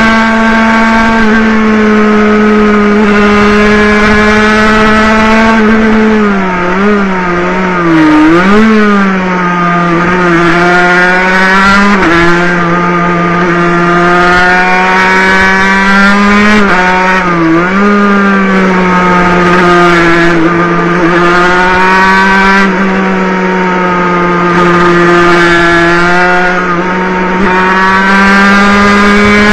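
Water-cooled 50cc two-stroke racing motorcycle engine heard onboard at high revs, a steady high-pitched whine. Around six to nine seconds in the revs drop and pick up again several times through a corner, with another short dip about seventeen seconds in before it holds high again.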